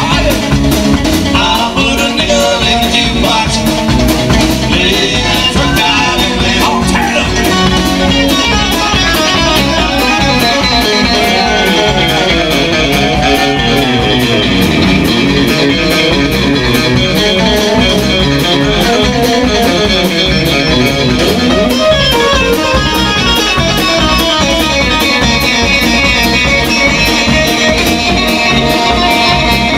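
Live trio playing an instrumental break in a country-rock song: an electric guitar lead with bending notes over bass guitar and drum kit with a steady cymbal beat.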